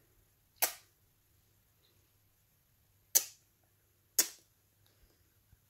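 Three short kissing lip-smacks of a person blowing kisses: one just over half a second in, then two more about a second apart after three seconds.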